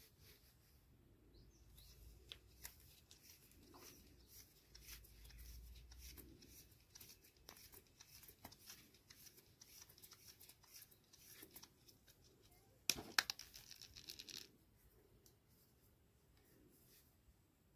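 Faint handling noise of PTFE thread-seal tape being wound onto a threaded galvanised pipe nipple: scattered small clicks and crinkles, with a brief louder run of crackles about 13 seconds in.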